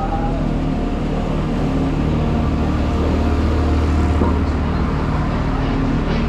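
City street traffic, with a vehicle engine running close by in a steady low hum.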